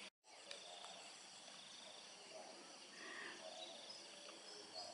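Faint rural ambience: insects trilling steadily, with a few soft bird chirps. The sound drops out completely for a moment just after the start.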